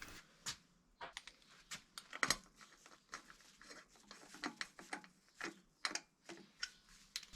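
Scattered light metal clicks and taps of a bicycle crankset being handled and fitted onto a square-taper bottom bracket spindle, the loudest knock a little over two seconds in.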